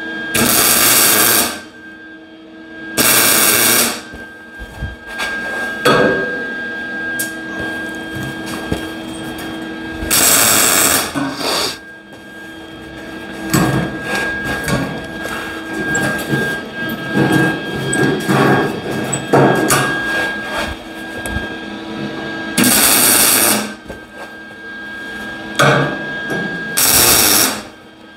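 MIG welder laying stitch welds along a clamped sheet-metal seam. It gives five separate bursts of arc crackle, each about a second long, with a steady hum in the gaps between welds.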